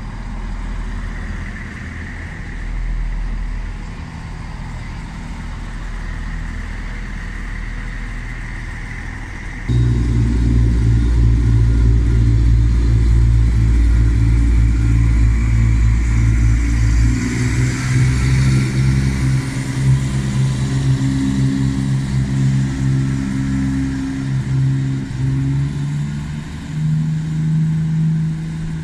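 ScotRail diesel multiple units pulling out of a station. First a Class 170 Turbostar's engines run with a high whine. Then, after a cut about ten seconds in, a louder diesel unit accelerates away, its engine note stepping up in pitch twice.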